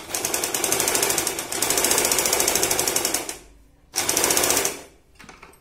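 Usha Stitch Queen electric sewing machine sewing a straight stitch at speed, its needle going up and down in a rapid, even rattle. It stops about three and a half seconds in, then runs again briefly just after four seconds.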